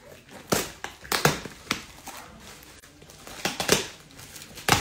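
Plastic bubble wrap and packing tape being torn and crinkled by hand as a parcel is pulled open: about half a dozen short, loud rips and crackles, with a bunch of them near the end.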